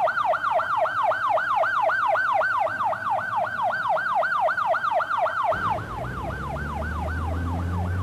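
Ambulance siren in its fast yelp, a rapid rising-and-falling wail repeating about four or five times a second. About two-thirds of the way in a low vehicle rumble comes in beneath it and the siren drops slightly in level.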